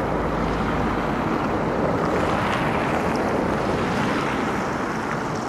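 Steady outdoor rushing noise with no distinct events, with a low rumble in the first second or so.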